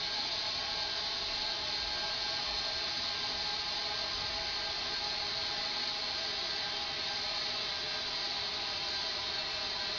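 Steady hiss of compressed air rushing from an air tank through an opened sprinkler valve, unbroken throughout.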